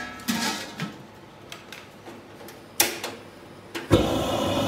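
Metal clanks from a wok lid and the cookware: a hit with a brief metallic ring just after the start, then a sharp click. Near the end a steady rushing noise starts suddenly, lasts about a second and cuts off abruptly; it is the loudest sound here.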